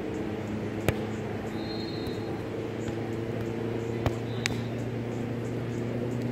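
A volleyball struck by hands during a rally: three sharp slaps, one about a second in and two close together about four seconds in, over a steady low hum.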